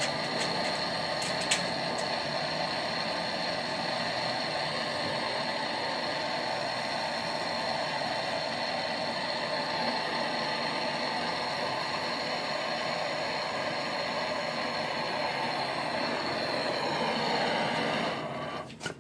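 Brazing torch burning with a steady hiss while the leaking joint on an air conditioner's evaporator coil is brazed. It swells slightly, then is shut off sharply near the end.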